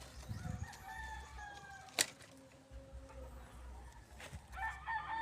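Rooster crowing twice: one drawn-out crow in the first two seconds, a second starting near the end. A sharp click comes about two seconds in.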